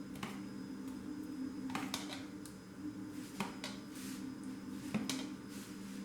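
A few light clicks and taps of a utensil against a deep dish while tomato sauce is spread over rolled pancakes, over a steady low hum.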